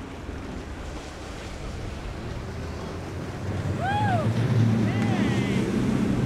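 Boat with several outboard motors running at speed through choppy water, with the rush of wind and wave wash; the low engine drone grows louder about halfway through as it passes close. Two short high calls rise and fall over it near the middle.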